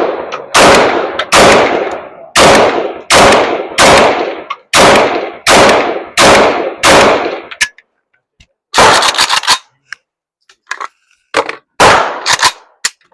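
Gunshots: about nine single shots fired at a steady pace, roughly one every three-quarters of a second, then a quick cluster of reports a little after halfway and four more fast shots near the end.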